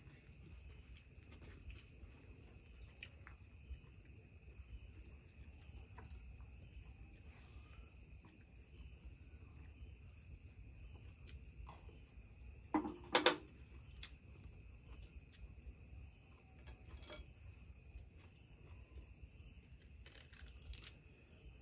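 Night insects, crickets among them, trilling steadily in several high tones, with a brief double knock about halfway through.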